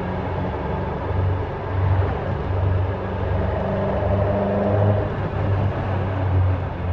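Caterham Super Seven 1600's engine running, a deep low rumble that swells and fades unevenly, with a brief higher note in the middle.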